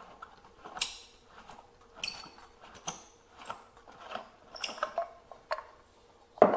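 Air filter assembly of a Homelite XL-98 cut-off saw being worked off by hand: a run of small clicks, scrapes and squeaky rubbing of parts, with one sharp knock near the end.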